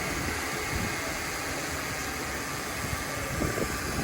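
Car engine idling steadily, with an even hiss over it.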